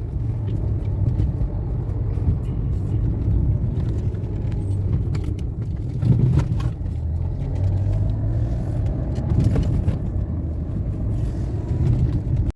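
Road noise inside a moving car's cabin: a steady low rumble of engine and tyres, with a few faint knocks.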